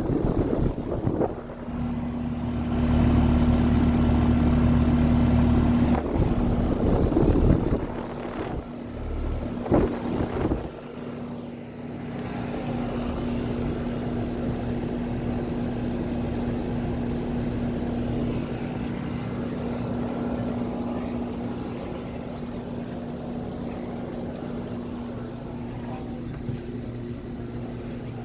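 Brand-new Carrier air conditioner running: a steady hum with one constant tone and fan noise. A louder rushing noise with a few short bursts comes in the first ten seconds, then the hum settles to an even level.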